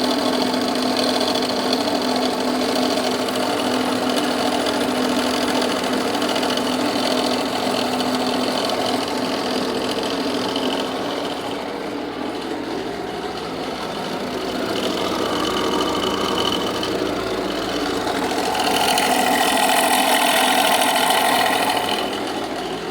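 Jeep Renegade 2.0 Multijet turbo-diesel engine running with a loud, rapid clacking from the accessory belt drive, like a water pump with a failed bearing. The noise is traced to a faulty alternator pulley. The sound grows louder near the end.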